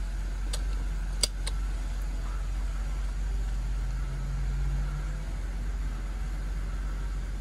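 BMW E93's engine idling steadily, heard from inside the cabin, with a few sharp clicks about a second in.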